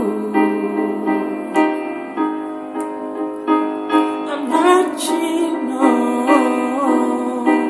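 Song with piano chords struck at an even pace, about one every half second or so. Partway through, a voice comes in, holding long notes with a wavering pitch.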